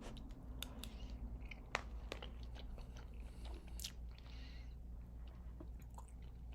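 A person chewing a mouthful of microwave mac and cheese with a breadcrumb topping, quiet mouth sounds with scattered small clicks and taps.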